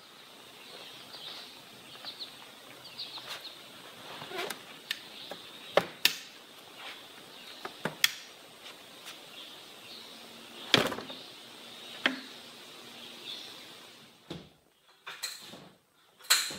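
A steady low background haze with faint high chirps near the start, broken by scattered sharp knocks and clicks, the loudest about eleven seconds in. It goes quieter near the end, with a few more knocks.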